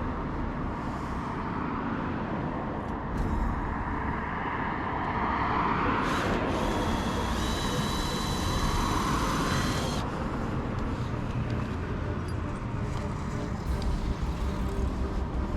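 Road traffic noise: a steady rumble of vehicles, swelling in the middle as a vehicle passes, with a high hiss and a thin whine that last about four seconds before cutting off.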